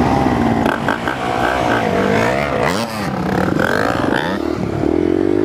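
Yamaha TTR 125's single-cylinder four-stroke engine revving up and down as the throttle is opened and closed while riding a dirt trail, with a few knocks and clatter from the bike.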